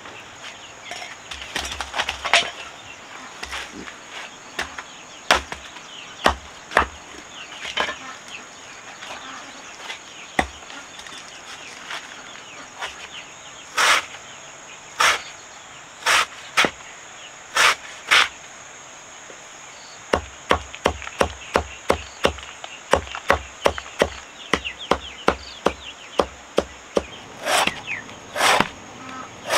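A series of sharp chopping blows, scattered at first, then in a quick run of about two to three strikes a second, over a steady high insect drone.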